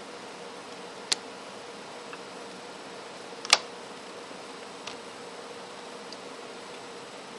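Sharp plastic clicks as a mobile phone's back cover is prised off its snap clips: one about a second in, a louder snap about three and a half seconds in, and a softer tick near five seconds, over a steady hiss with a faint hum.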